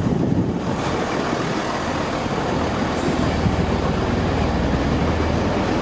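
Class 165 diesel multiple unit rolling slowly alongside the platform: a steady rumble of wheels on rail under a low diesel engine hum, with one sharp click about halfway through.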